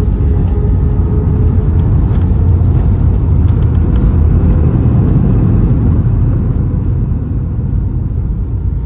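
Airbus A320 cabin noise during touchdown and landing roll: a loud, steady low rumble of engines and wheels on the runway, with a few faint clicks and rattles about two to four seconds in. The rumble eases off over the last few seconds as the jet slows.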